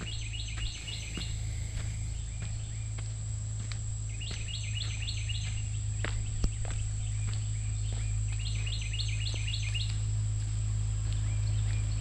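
A songbird singing a quick phrase of several rapid notes, three times about four seconds apart. Underneath are light footsteps on a dirt trail and a steady low rumble.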